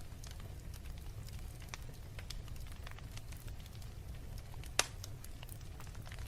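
Wood fire burning in a fireplace: logs crackling with scattered small pops over a low steady rumble, and one louder snap near the end.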